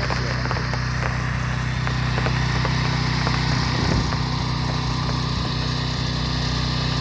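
Gas engine of a pressure washer running steadily at constant speed, with a steady hiss over it.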